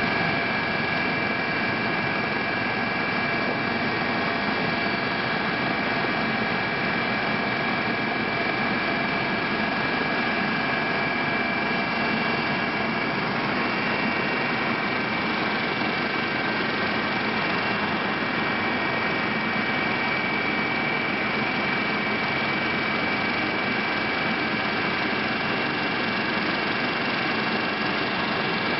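Steady drone of the filming aircraft's engine heard inside its cabin, an even noise with a constant high whine that never changes in level.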